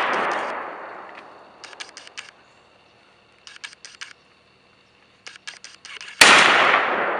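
An SKS rifle fires one shot about six seconds in, a sharp crack followed by a long decaying echo. At the start the echo of the previous shot is still dying away, and in between come a few short bursts of quick high ticks.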